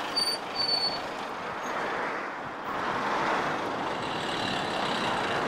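Road noise and the running engine of a stopped colectivo bus, a converted school bus, with traffic going by. There is a brief high squeal twice within the first second.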